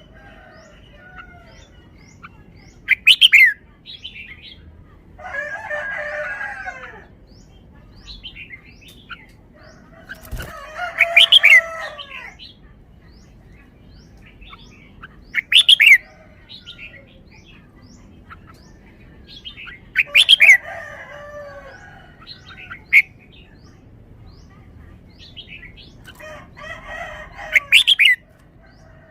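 Red-whiskered bulbul singing short, loud whistled phrases that recur every few seconds. In between, a rooster crows several times.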